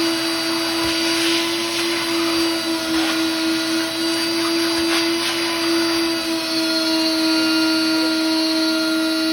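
Vacuum cleaner running steadily, its motor whine holding one pitch over the hiss of suction.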